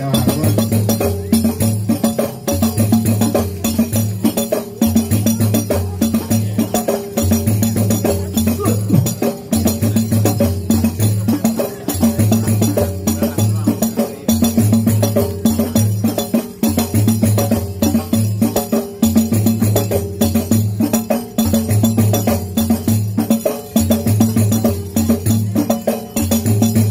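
Rebana frame drums beaten together in a steady, repeating rhythm of rapid strokes, with a deep beat recurring about every second and a half.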